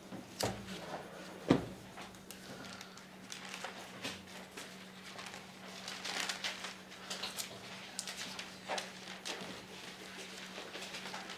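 Thin Bible pages rustling and being leafed through, with scattered soft clicks and a sharp tap about a second and a half in, over a steady low hum.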